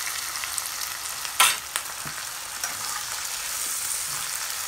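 Sliced onions sizzling and crackling in hot oil in a pan, with one sharp knock about a second and a half in.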